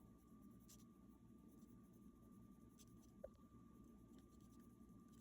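Near silence: room tone with a faint steady tone and a single soft click a little over three seconds in.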